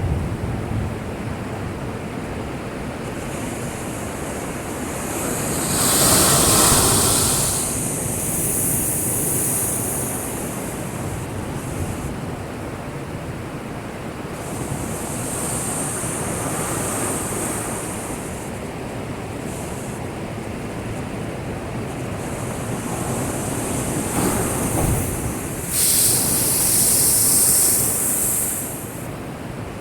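Rough sea surf, heavy typhoon swell, breaking and washing against a breakwater in a steady rush. It swells into two louder crashes of spray: one about six seconds in and one near the end.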